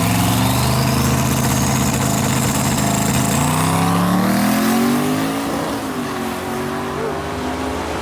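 Twin-turbo Camaro launching down the drag strip at full throttle, the engine revving hard with a rising turbo whine. About five seconds in the driver lifts off and the engine note falls away.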